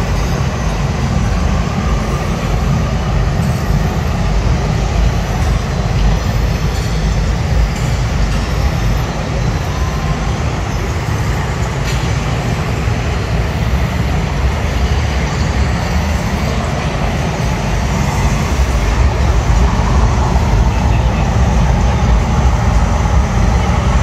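Steady, loud rushing noise with a heavy low rumble, growing a little louder near the end, with faint voices mixed in.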